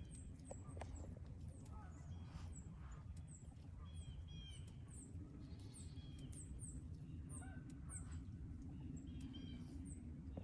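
Faint bird calls: many short, high chirps repeating every half second or so, with a few lower calls mixed in, over a steady low rumble.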